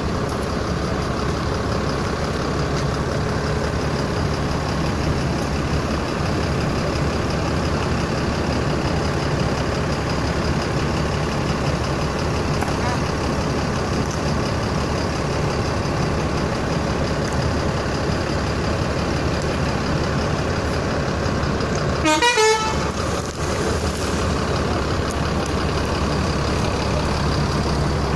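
Bus engine running steadily, with one short loud burst about three-quarters of the way through.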